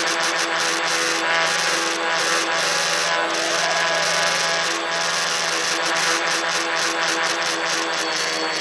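Tricopter's three electric motors and propellers buzzing steadily in flight, heard close up from the phone riding on the craft.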